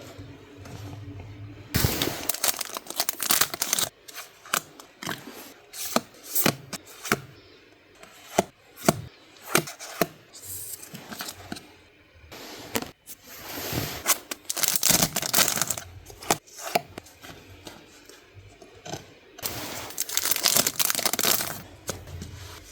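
Packaging being handled, torn open and crinkled by hand: irregular rustles and sharp snaps, louder in a few stretches.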